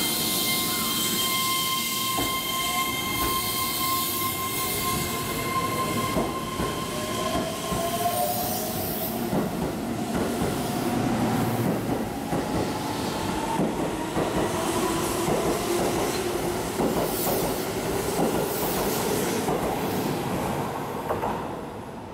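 Keihan 3000 series electric train pulling out of the station. Its traction motors give a whine that rises in pitch as it accelerates, over a steady high hum that stops about eight seconds in. The wheels click over the rail joints as the cars pass, and the sound fades near the end as the train leaves.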